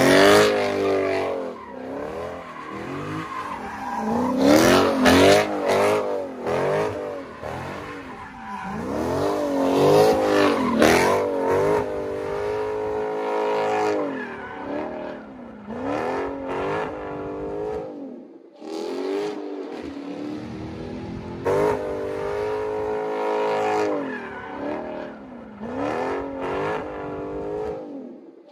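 Dodge Charger doing donuts, the engine revving up and down over and over as the rear tyres spin and squeal on the pavement.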